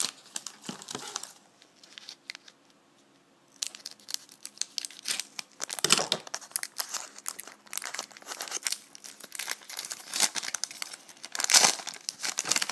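Foil trading-card pack crinkling and tearing as it is handled and opened by hand. The crinkling drops away briefly after the first second or so, then comes back in a dense run of crackles, loudest near the end.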